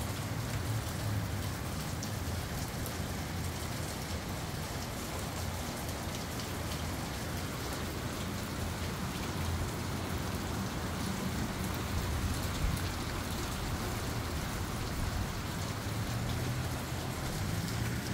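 Steady rain falling, an even hiss of drops with a low, uneven rumble of gusty wind underneath.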